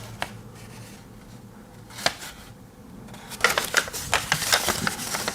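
Paper instruction leaflet being handled. A couple of single clicks come first, then, past the halfway point, a busy patch of paper rustling and crinkling with small clicks.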